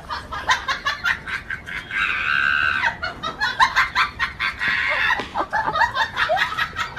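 Chickens clucking and squawking in rapid short calls, with longer squawks about two seconds in and again around five seconds in.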